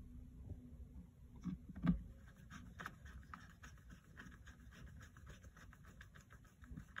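Light clicks and scratches of a small screwdriver and fingers working the battery screws in an opened MacBook Pro, with two sharper knocks about a second and a half and two seconds in, then a run of faint ticks.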